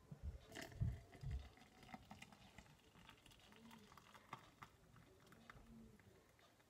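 A few low clunks as the electric kettle is handled, then a faint, steady trickle of water poured from its spout into a narrow-necked travel mug.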